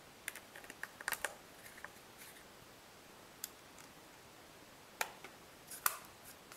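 Small, sharp clicks and taps of quadcopter frame parts being handled and an Allen key fitted to screws at the corners of the chassis plate. They come in a quick cluster in the first second and a half, with a few more near the end.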